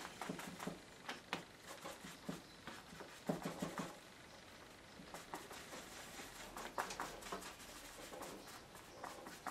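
Paint being dabbed and scrubbed onto paper at an easel: short runs of quick, soft taps and scrapes, the busiest about three seconds in and again about seven seconds in.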